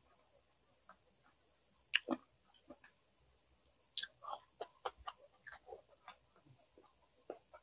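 A person chewing and biting food close to the microphone: scattered short, crisp crunches and mouth clicks, a sharp one about two seconds in and a quick run of them from about four to six seconds in.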